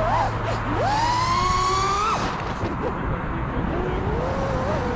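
FPV racing drone's brushless motors and propellers whining. The whine jumps up in pitch about a second in as the throttle is punched, keeps rising for a second or so, then cuts off as the throttle is chopped. A lower, wavering whine returns near the end.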